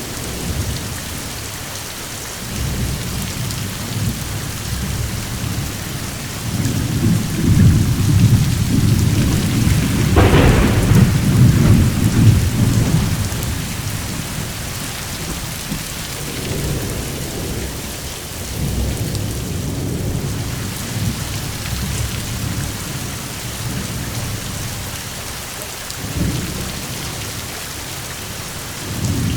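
Steady rain falling, with thunder rumbling low underneath; the thunder builds to its loudest about ten seconds in, with a sharper crack, then rolls away, and rumbles again later.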